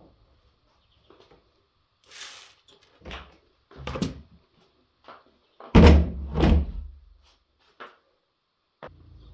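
A series of separate knocks and thuds with short quiet gaps between them; the loudest, a heavy pair of thumps, comes about six seconds in.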